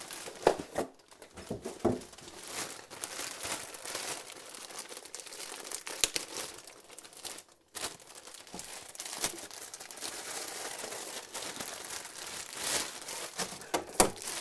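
A clear plastic bag crinkling and rustling in uneven bursts as a coiled cable is pulled out of it, with a short break about seven and a half seconds in.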